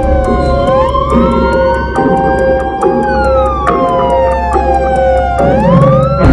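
Siren wailing, rising, falling slowly and rising again, over steady tones, a low hum and a regular ticking beat.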